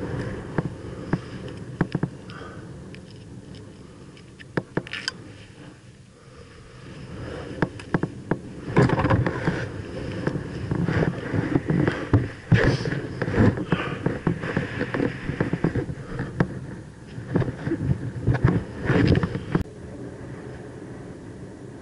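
Irregular clicks, knocks and rustling of hands handling the dirt bike's handlebar and cables close to the microphone, busiest in the second half.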